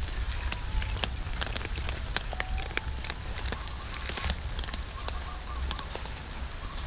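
Several cats crunching dry kibble from a metal tray: a dense, irregular run of sharp crunches and clicks over a low rumble.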